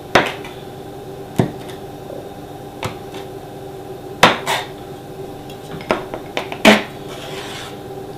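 Palette knife blade pressing down through thin dough and knocking on a hard worktop, about seven sharp separate taps, the loudest about two-thirds of the way through, over a faint steady hum.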